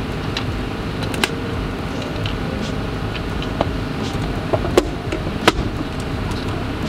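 Steady low rumble of lab air handling, with a few sharp plastic clicks and taps from lab equipment and tubes being handled, the loudest about five seconds in.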